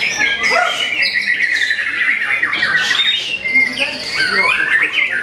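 White-rumped shama singing a rapid, unbroken stream of varied whistles, trills and harsh chattering notes.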